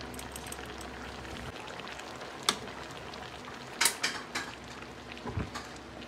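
Sinigang broth simmering in a stainless steel wok. A metal ladle clinks and knocks against the pan a few times in the second half.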